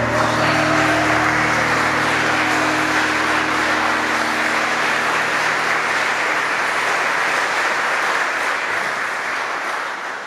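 Congregation applauding steadily, a dense clapping that fades out near the end, over the last fading notes of music in the first few seconds.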